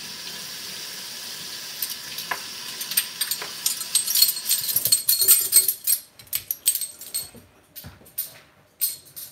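Dishwashing at a kitchen sink: tap water runs with a steady hiss while dishes clatter, and the water shuts off suddenly about five and a half seconds in. Scattered clinks and knocks of dishes follow.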